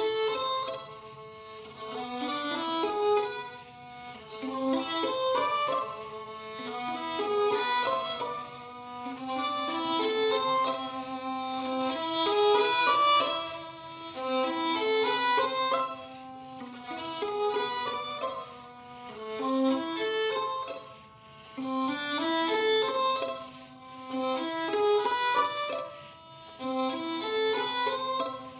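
Background music led by a violin playing a melody in phrases that swell and fade every couple of seconds.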